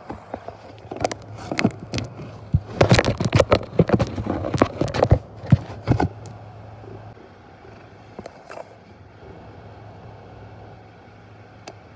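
A cat's paws batting and scratching at a box, heard from inside it: a quick, irregular run of taps and scrapes from about a second in to about six seconds, then quieter with a couple of light taps near the end.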